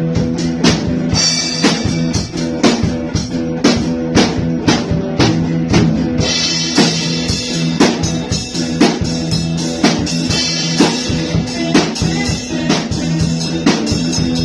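A band jamming a cover song: a drum kit keeps a steady beat under strummed guitar chords.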